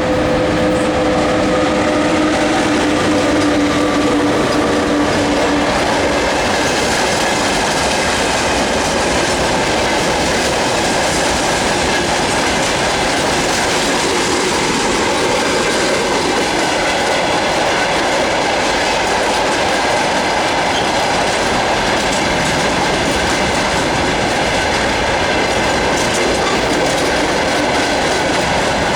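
Freight train behind a VL80T electric locomotive rolling past: a continuous rumble with the clickety-clack of wagon wheels over rail joints. A steady tone from the locomotive fades out over the first few seconds.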